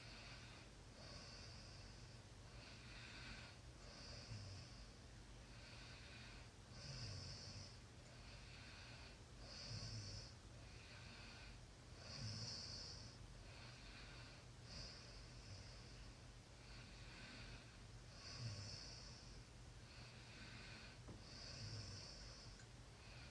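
A person snoring faintly in slow, regular breaths, about one breath every three seconds. Each breath is a hissing draw followed by a softer out-breath, and some carry a faint low snort.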